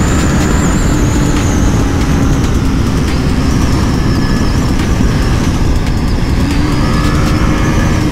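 KTM RC 390's single-cylinder engine running at a steady cruise, under heavy wind rush on the microphone.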